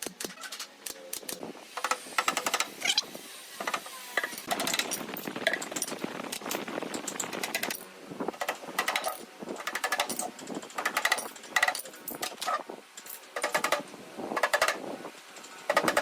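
Irregular series of sharp clicks and knocks, often in quick rapid clusters, from work on wooden furniture.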